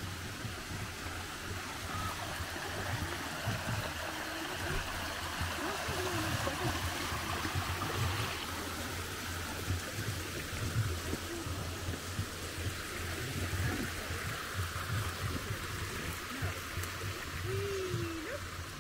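Water spilling over a small stone weir into a channel, a steady rushing that is loudest midway and fades towards the end.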